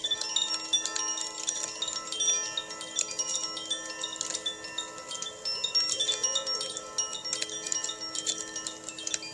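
Koshi chime tinkling, its rods struck in quick, irregular succession, over the steady lingering ring of singing bowls.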